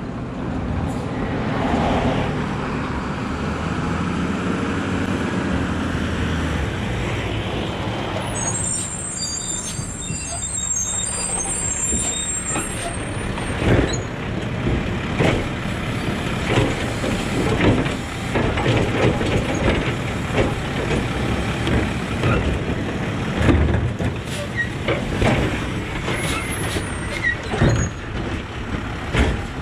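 Automated side-loader garbage truck's diesel engine running as it pulls up, with a hiss and squeal from the air brakes as it stops. Its hydraulic arm then works, with repeated clanks and knocks as it grips and lifts a wheeled plastic trash cart.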